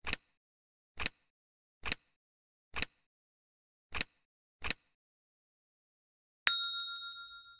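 Title-animation sound effects: six short pops about a second apart, one for each word that appears on screen, then a single bright chime-like ding that rings and fades over about a second and a half.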